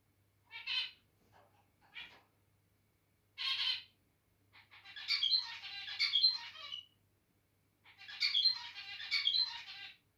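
Zebra finch giving three short nasal calls, then singing two song phrases of two to three seconds each, made of quick buzzy and stacked notes.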